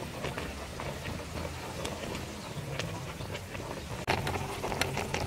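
Liquid boiling in an aluminium pot around a whole duck, a steady bubbling hiss with small crackles. About four seconds in, metal tongs clatter into the pot and the broth splashes as the duck is gripped.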